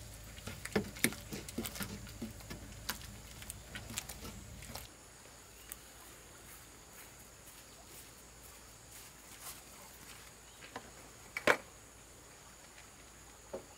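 Wooden paddle stirring thick mash in a large metal cooking pot over a wood fire: repeated scrapes and knocks against the pot over a low steady rumble, stopping abruptly about five seconds in. The rest is quieter outdoor background with a few faint ticks and one sharp knock a couple of seconds before the end.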